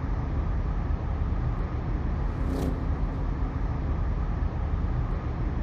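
City street traffic ambience: a steady low rumble of road traffic, with a short hiss about halfway through.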